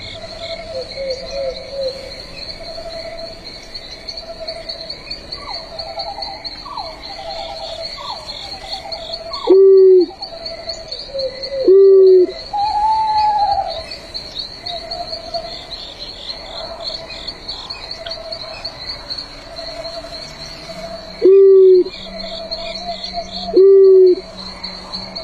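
Owl giving low hoots, four in all, in two pairs about two seconds apart, the loudest sounds here. Behind them runs a steady chorus of trilling crickets and calling frogs.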